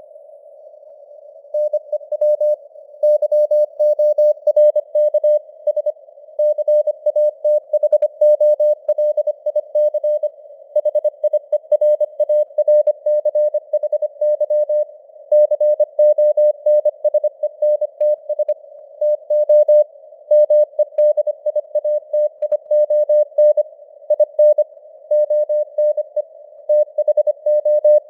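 Morse code (CW) sent at 25 words per minute: a single mid-pitched beep keyed on and off in quick dots and dashes over a soft hiss of simulated radio noise. The keying starts about a second and a half in.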